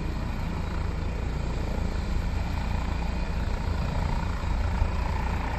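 Helicopter running on the ground with its main rotor turning: a steady rotor and turbine engine noise, heaviest in the low end.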